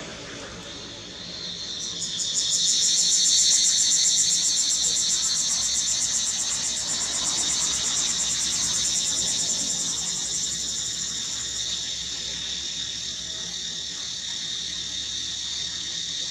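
Insect chorus: a loud, high, rapidly pulsing buzz that swells in about two seconds in and then carries on steadily.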